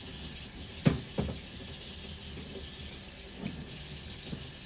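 Two sharp clicks about a second in, a third of a second apart, then a few fainter knocks, over a steady hiss. They come from a blade being handled while the rubber hydraulic hose is trimmed.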